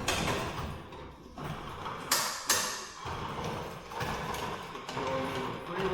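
Sectional garage door being moved by hand, its rollers rumbling and clattering in the metal tracks, with two sharp knocks about two seconds in.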